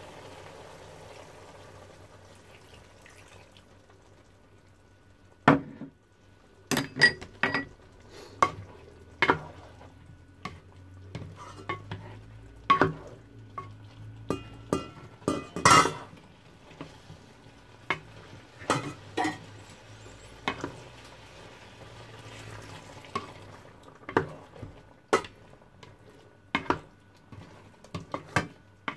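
Spoon stirring vegetables in a stainless steel pan, with irregular sharp clinks and knocks as the spoon and the pan's lid strike the metal. A soft steady hiss from the simmering pan fades out over the first few seconds, before the clinking starts.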